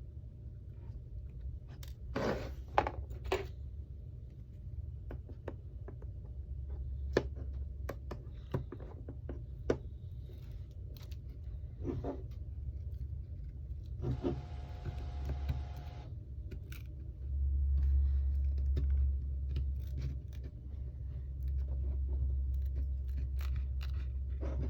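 Small clicks, taps and scrapes from handling an iPhone X and small repair tools on a work surface, with a denser rustling patch about two-thirds of the way through, over a steady low hum that grows louder near the end.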